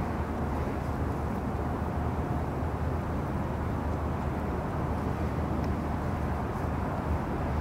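Airbus A380 jet engines, a steady deep rumble with no rise or fall.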